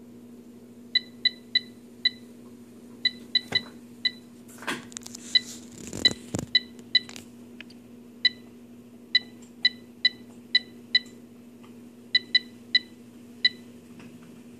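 AeroGarden ULTRA LED control panel beeping by itself: about two dozen short beeps at one pitch, coming singly and in quick irregular clusters, over a steady low hum. The beeping is a symptom of its malfunctioning control computer. There is a brief rustle about halfway through.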